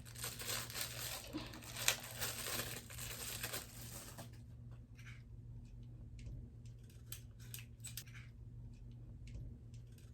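Packaging rustled and crinkled for about four seconds, then a run of scattered small clicks and taps as parts are handled.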